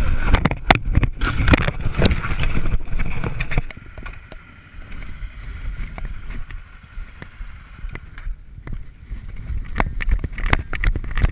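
Off-road motorcycle ridden over rough ground: the engine runs under a steady drone while the bike jolts and rattles. It is loudest and most clattery for the first few seconds, eases, then the knocks pick up again near the end.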